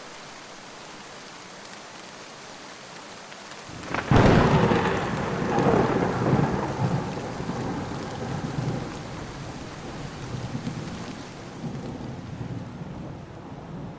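Steady rain falling, then about four seconds in a sudden loud crack of thunder that rolls on as a long rumble, slowly dying away under the rain.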